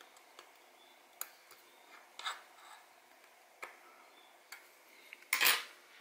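Steel tweezers clicking and scraping against the parts of a Seiko 3883 quartz watch movement in sparse, irregular small ticks, as a stuck setting lever is worked at. A louder short rasp comes near the end.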